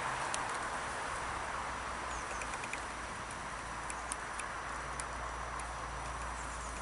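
Steady outdoor background rush, with faint scattered high ticks throughout.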